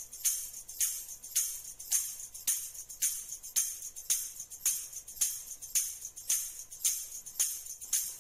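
Sparse stretch of background music: a high, jingly percussion hit like a tambourine, about twice a second, with little else under it.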